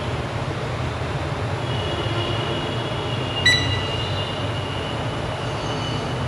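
Steady low hum and hiss of electronics workbench equipment, with a faint high whine. About three and a half seconds in there is one sharp click with a brief ringing tone.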